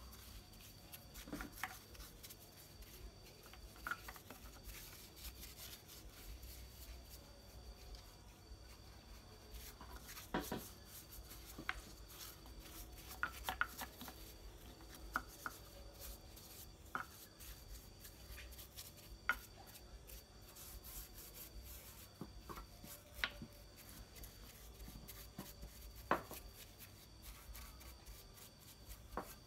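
Small brush dabbing and rubbing wood polish onto a carved wooden statue: faint scattered taps and brushing strokes.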